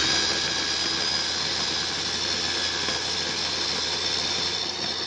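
Black & Decker electric mini chopper running steadily, its blade whirring through herbs and a little water to grind them into a green chutney paste.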